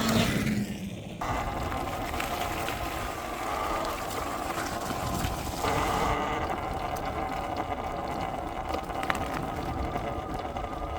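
Electric bike in motion: a steady hum with a continuous rushing noise from the ride.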